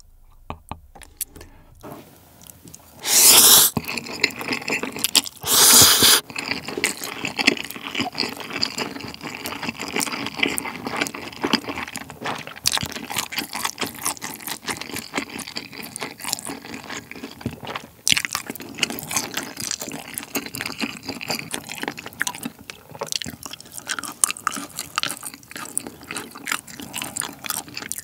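Close-miked eating of Buldak spicy stir-fried noodles and sauced chicken: two loud slurps a few seconds in, then steady wet chewing with small sticky mouth clicks.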